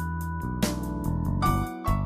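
Background music only: a piano-led instrumental with a steady beat and sustained notes.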